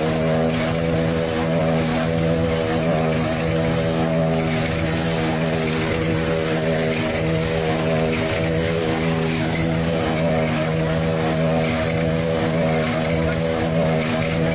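Motorcycle engine running on at one steady pitch after a crash, still running with the bike down.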